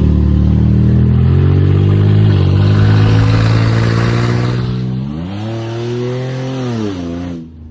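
Toyota SUV's engine accelerating, its pitch climbing steadily with a brief dip of a gear change about two seconds in. Later the revs rise, hold and fall away, and the sound cuts off abruptly just before the end.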